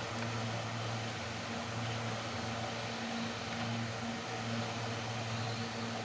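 A steady low hum over an even background hiss, wavering slightly in strength.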